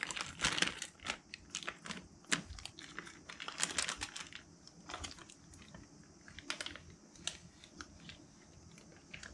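Plastic fish bag crinkling and rustling as it is handled, with irregular light clicks and crackles. These are busiest over the first four seconds and sparser after that.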